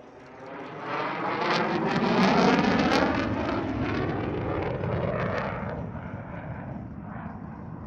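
F-16 fighter jet flying past. Its engine noise swells quickly from about a second in and is loudest around two to three seconds in, with some crackle, then eases off to a steady, fainter rumble.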